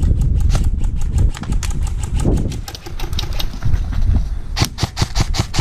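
Airsoft guns firing rapid strings of shots, sharp clicks several times a second, with a denser burst near the end, over a low rumble on the microphone.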